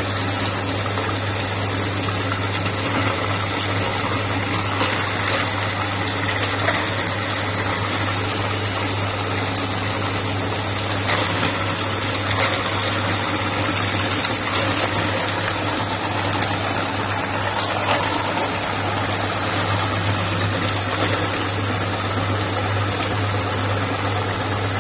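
Electric meat grinder running steadily, its motor humming while it forces soft, wet green mash out through the cutting plate with wet, squishing sounds.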